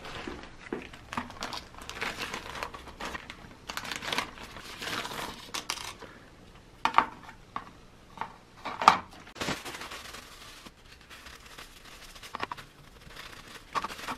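Crinkling and rustling of a clear plastic bag and a paper towel handled over a brass badge coated in metal-cleaning paste, in irregular bursts. There are two sharper, louder clicks past the middle.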